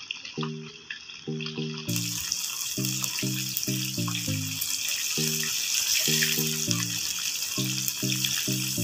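Battered fish fillets deep-frying in a wok of hot oil: a steady crackling sizzle, louder from about two seconds in. Background music with short repeated low notes plays under it.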